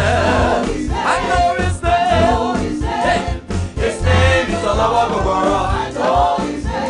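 Gospel praise-and-worship music: voices singing over a band with strong low bass notes and a steady beat.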